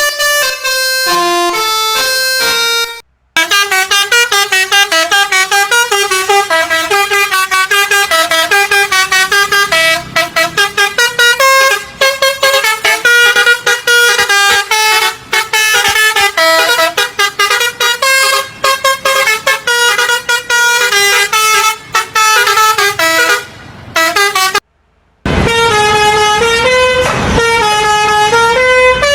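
Basuri telolet multi-tone bus horns playing quick stepped melodies, clip after clip, with two brief silences where the recordings change. In the last few seconds the horn tune plays over a low rumble.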